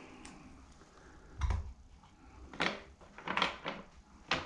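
Several sharp clicks and knocks of a plastic ceiling exhaust fan housing being handled and turned in its ceiling cutout, the first with a dull thump.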